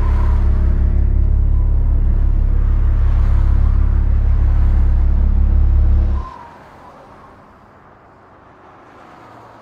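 A car engine running steadily, cutting off abruptly about six seconds in and leaving only faint background sound.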